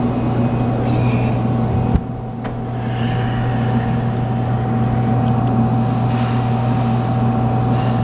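Claw machine running with a steady low mechanical hum, and one sharp click about two seconds in.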